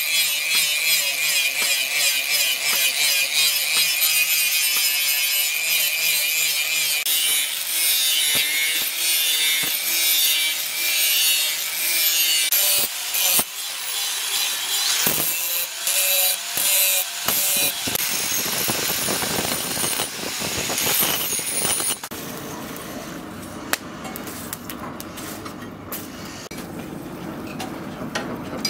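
Electric angle grinder grinding the steel blade of a machete, a dense high hiss over the steady whine of the motor, the pitch of the whine shifting partway through. Toward the end the grinding gives way to quieter noise with scattered ticks.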